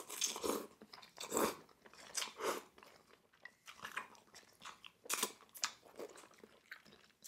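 Person eating close to the microphone: slurping from a small bowl and chewing, a string of short wet mouth sounds about a second apart.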